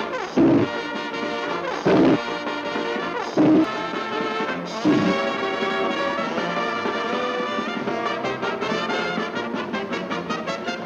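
Orchestral opening theme music led by brass, trombones and trumpets. Four loud hits come about a second and a half apart in the first five seconds, then the music carries on more evenly.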